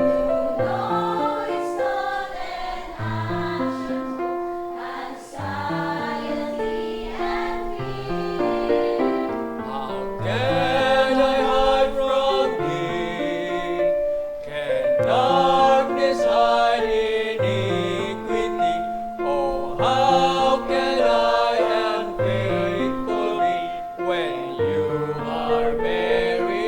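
Church choir singing a hymn in several voices.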